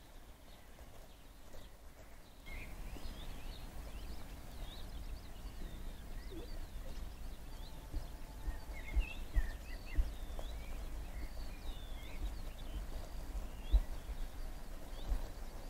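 Small birds chirping and twittering over a low outdoor rumble, with irregular gusts of wind thumping on the microphone; the chirps and the overall level pick up about two and a half seconds in.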